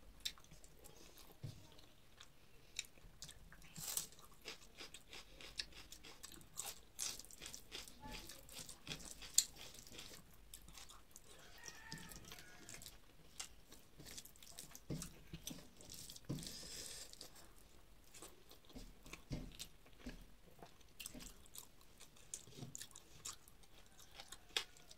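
Close-up chewing and mouth sounds of a person eating rice and spinach chorchori by hand: faint, irregular clicks and smacks with no steady rhythm.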